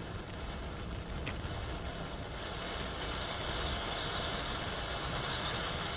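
Ground firework fountain burning with a steady hiss as it throws up a column of sparks, growing a little louder and sharper about two seconds in.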